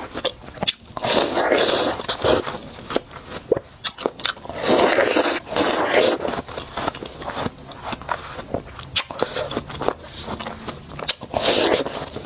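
Biting into and chewing watermelon close to the microphone: three loud, wet crunching bites, about one, four and a half and eleven seconds in, with quick juicy chewing clicks between them.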